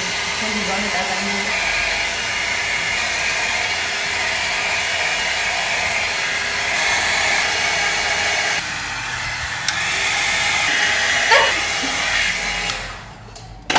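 Handheld hair dryer blowing steadily over a wet watercolour painting to dry the paint. Near the end there is a brief sharp sound, and then the dryer is switched off.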